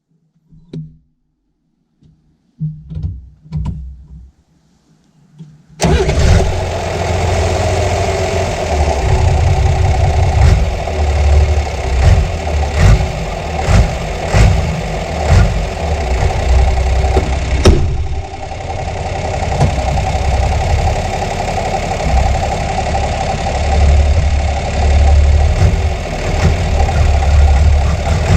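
John Deere 3350 tractor's six-cylinder diesel engine. A few faint low knocks come first; then, about six seconds in, the engine comes on loud all at once and runs, its speed rising and falling now and then.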